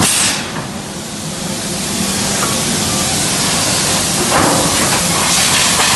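Hissing bursts at the dies of a SMERAL LKM 4000 hot forging press, over continuous forge-shop noise. One burst comes at the very start and fades within half a second, and two more come about four and five seconds in.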